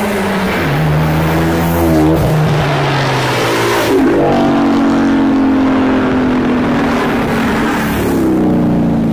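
Cars accelerating hard along a road, a loud engine and exhaust note climbing in pitch, dropping at a gear shift about two seconds in, then climbing again and holding steady.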